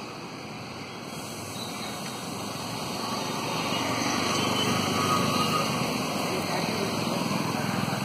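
Dense buzzing of a wild honeybee colony massed on its open comb, a steady hum that grows louder about three to four seconds in.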